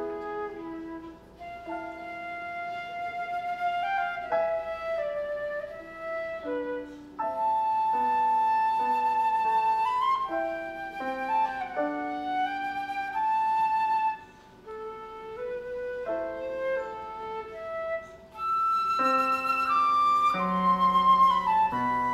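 Flute playing a classical solo: melodic phrases of held notes, with short breaks between phrases.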